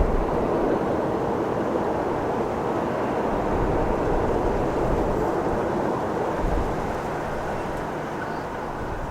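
Jet airliner's engines, a steady rush that slowly fades away.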